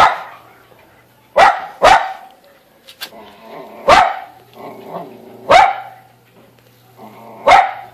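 A dog barking: single loud barks every second or two, about six in all.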